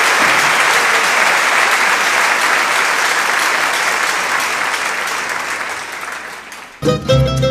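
Audience applauding steadily, then dying away over the last seconds. Near the end, a guitar ensemble abruptly strikes up the next song with plucked chords.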